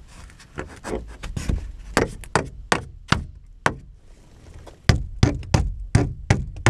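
Hammer driving nails into wood: a run of sharp strikes, a pause of about a second near the middle, then six evenly spaced blows.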